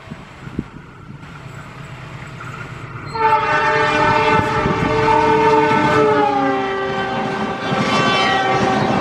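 Passing train's locomotive horn giving one long blast of several tones together. It starts about three seconds in over the rising rumble of the approaching train and drops in pitch partway through as the train goes by.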